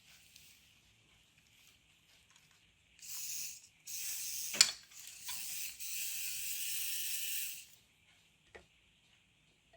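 Small toy gear motors whirring with a high-pitched rasp of plastic gears, in three bursts a second or two long, as the line-follower car's wheels are set turning; a sharp click falls in the second burst and another comes near the end.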